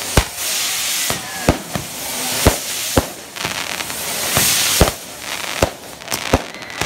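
Fireworks tower (castillo) burning: a hiss of spraying fountains and spinning wheels that swells and fades, cut by about a dozen sharp firecracker bangs at uneven intervals.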